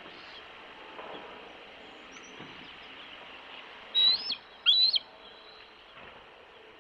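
A bird gives two short, high-pitched calls less than a second apart, each rising and then falling in pitch, over a steady outdoor hiss of wind or surf.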